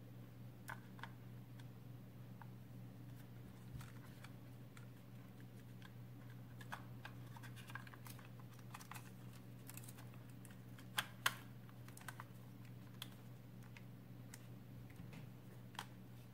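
Faint, scattered plastic clicks and handling noises as a battery is fitted into a Silvercrest SDK 20 A1 compact digital camera's battery compartment, with two sharper clicks close together about eleven seconds in.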